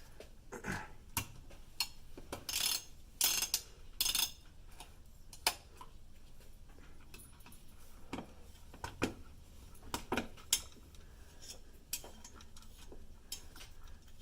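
Irregular clicks and short scrapes of a screwdriver turning the spring-loaded screws of a CPU cooler, tightened a little at a time.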